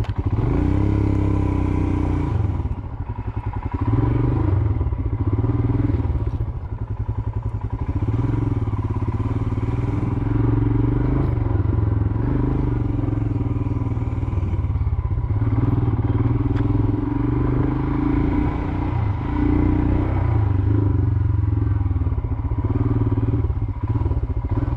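Royal Enfield Himalayan's single-cylinder engine running under a riding load, its note easing off briefly a couple of times as the throttle is rolled off and on.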